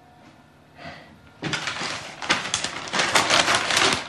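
A newspaper rustling and crackling as it is taken and opened, starting about a second and a half in and going on to the end.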